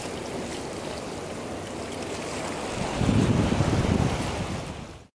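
Sea water washing around concrete tetrapods at the water's edge, with wind buffeting the microphone; a louder low rush swells up about three seconds in. The sound cuts off abruptly near the end.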